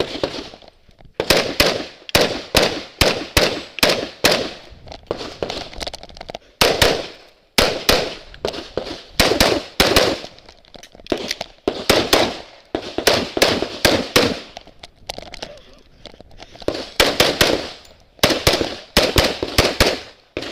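Rapid pistol gunfire: dozens of sharp shots in quick strings of two to five, with short pauses between strings.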